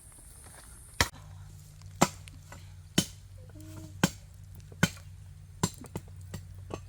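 Repeated sharp chopping strikes, about one a second, dying down to a few lighter taps near the end, with a low steady hum underneath.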